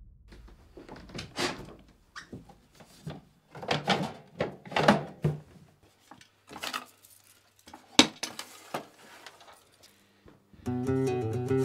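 A small wooden box being handled on a wooden floor: scattered knocks, scrapes and squeaks, with one sharp click about eight seconds in. Plucked guitar music starts near the end.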